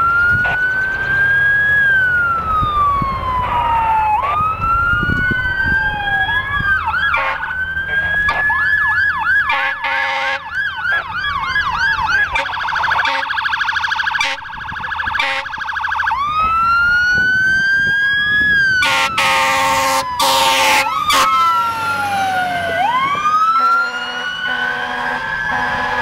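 Fire engine siren on a responding aerial tower truck: a wail rising and falling every few seconds, switching to a fast yelp about a third of the way in and a rapid pulsing tone for a few seconds, then back to the slow wail, over the truck's engine and road noise.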